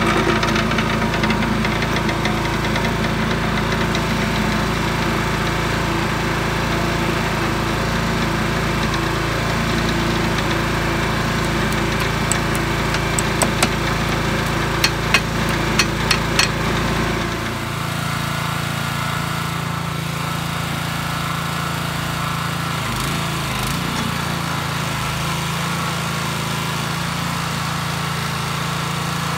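The small gas engine of a Harbor Freight towable trencher running steadily. Around the middle there is a short run of sharp metal clicks as the arm's hinge pin and its retaining clip are fitted by hand. A little after that the engine note changes and stays steady while the backhoe arm is worked.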